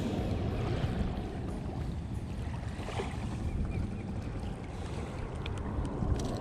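Steady low wind rumble on the microphone, with a couple of faint clicks near the end as pliers work the lure's hook out of a snook's mouth.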